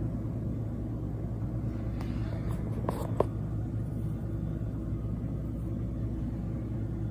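Steady low background rumble, with a few light clicks and one sharper tick about three seconds in.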